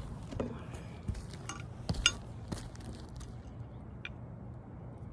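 Metal hand tool being handled, a few sharp metallic clicks and taps, the loudest about two seconds in, and a short ringing ping about four seconds in.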